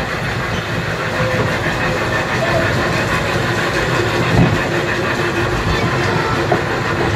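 Kiddie train ride running along its track with a steady rumble and rattle of wheels and cars.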